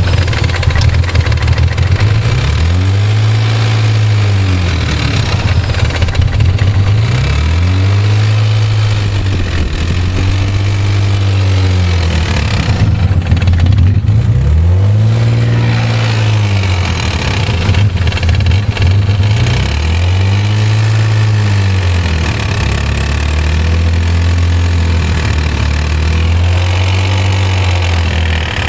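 1991 Nissan 300ZX's 3.0-litre V6 idling and repeatedly revved up and back down, about seven blips, with a weird ticking that the owner knows is not normal for this engine.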